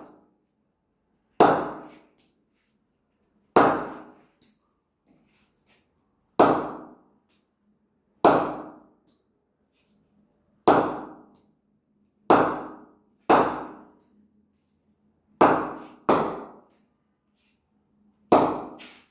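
A leather cricket ball knocked against the face of an English willow cricket bat about ten times at uneven intervals. Each hit is a sharp crack that rings out briefly. The ringing knock shows off the bat's 'punch', which is called very good.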